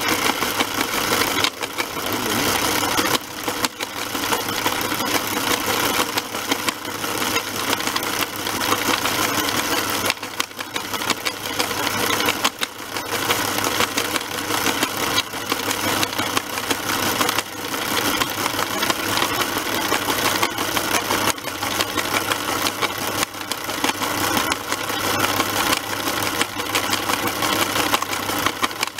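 Small electric motors and gearing of a scale-model rock crushing plant and conveyor running steadily, a continuous mechanical whirring rattle.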